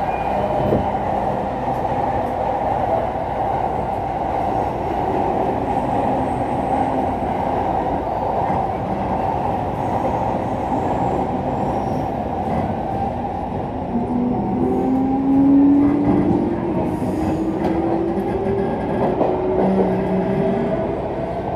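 E231 series commuter EMU with its original, un-renewed traction equipment pulling away from a station and gathering speed, heard from inside the car: steady running noise, with the motor and inverter whine rising in pitch through the second half as the train accelerates.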